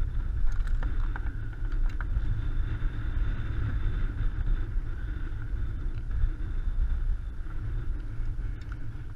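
Steady rumble of wind buffeting the microphone over chop slapping the kayak hull, with a few small clicks in the first two seconds as a lure is worked free of a striped bass's mouth.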